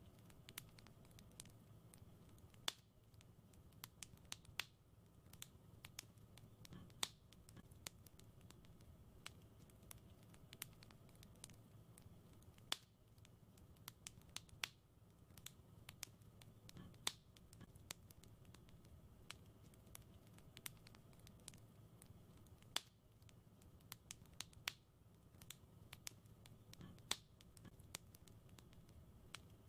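Fireplace fire crackling: quiet, irregular snaps and small pops, with a sharper pop every few seconds, over a soft low hum.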